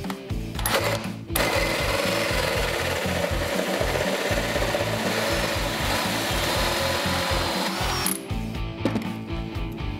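Cordless drill driving a Milwaukee bi-metal hole saw through a chrome motorcycle dash panel, cutting steadily from about a second and a half in until about eight seconds in, with background rock music underneath.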